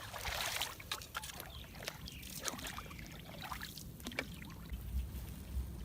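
Hand paddle dipping and pulling through shallow water in several uneven strokes, each a splashy swish.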